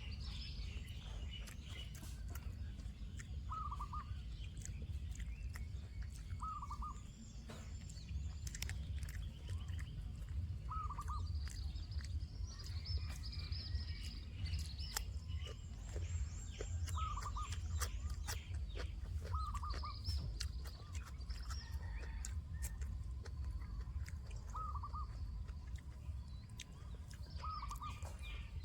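Birds calling: one short call repeated every few seconds, with higher chirping in between, over a low rumble and scattered clicks.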